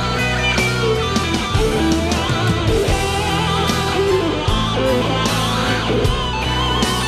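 Rock band playing an instrumental passage, with an electric guitar carrying a wavering, vibrato-laden lead line over sustained bass and drums.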